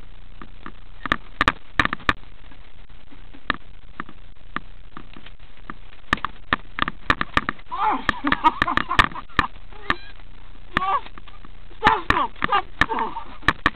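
Irregular sharp clicks and knocks of handling noise from a camera-mounted Nerf blaster being carried and swung around. Children's shouts come in about eight seconds in and again near the end.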